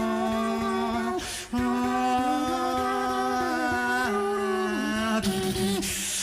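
A cappella beatbox performance: a hummed low bass note held under a chord of sustained sung tones that step to new pitches a few times. A short breathy hiss about a second in, and a longer one near the end.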